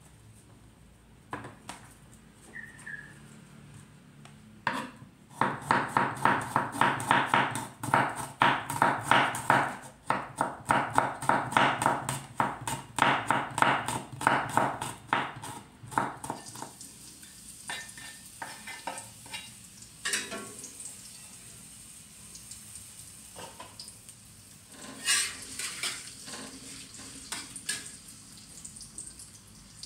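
A knife chopping garlic cloves on a wooden cutting board, rapid knocks about four a second, starting about five seconds in and stopping about halfway. Then garlic sizzling in oil in a wok, with scattered clinks of a metal spatula stirring against the pan.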